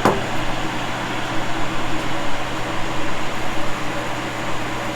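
Steady background hum and hiss, like a running fan or air-conditioning unit, with no distinct knocks or clicks.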